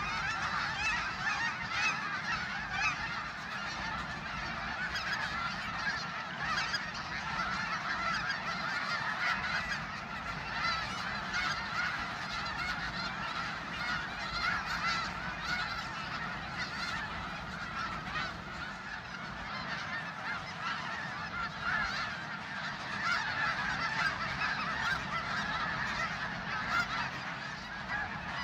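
A large flock of geese calling together, a dense unbroken chorus of many overlapping honks.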